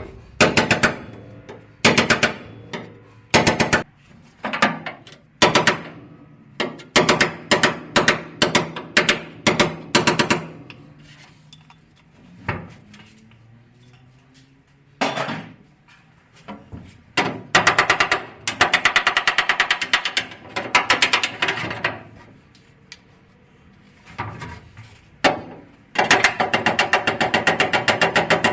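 Hammer blows on a car's steel frame rail, knocking out dents from below, in irregular clusters of sharp strikes and later in fast, evenly spaced runs.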